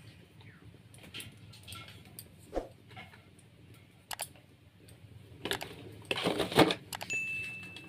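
Scattered light clicks and knocks of steel kitchenware being handled while spices are added to a bowl of fish, with a louder clatter and rustle about five and a half to seven seconds in. A short steady high tone sounds near the end.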